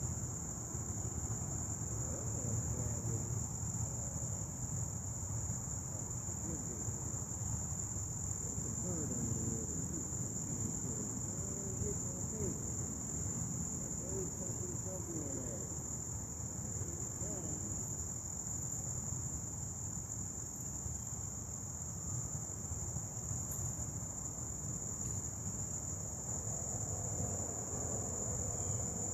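Steady high-pitched chorus of crickets, unbroken throughout, over a low rumble.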